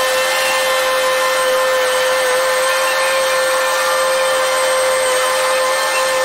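Travelift mobile boat hoist running as it drives along with a catamaran slung beneath it, making a steady, unbroken high whine over the hum of its machinery.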